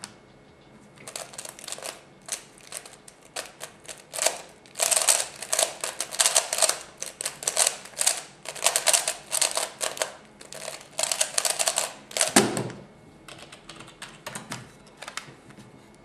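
A plastic F-II 3x3 speedcube clacking rapidly under fast finger turns through a speedsolve of about eleven seconds. It ends in a thud about twelve seconds in as the cube is put down and the timer slapped to stop it, followed by a few fainter clicks.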